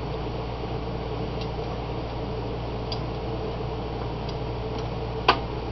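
Steady workshop hum with a few faint ticks, and one sharp click about five seconds in as the tailstock drill chuck and wire pointer jig are handled at the mini lathe.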